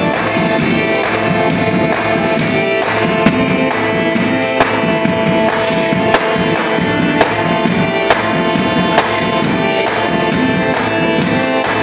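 Live band music with a steady beat and sustained chords.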